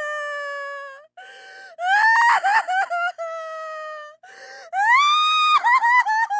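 A woman crying: high drawn-out wails that rise and then break into stuttering sobs, with short gasping breaths drawn in between them, twice.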